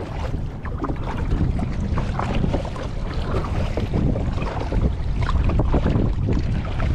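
A kayak being paddled through choppy water: the hull and paddle blades splash and slap against the chop while wind buffets the microphone with a steady low rumble.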